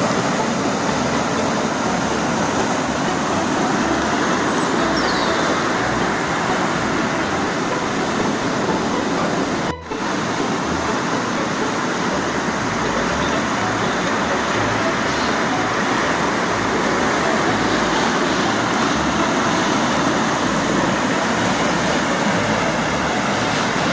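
Steady rushing of a river in flood, the swollen current running strong, with a brief break about ten seconds in.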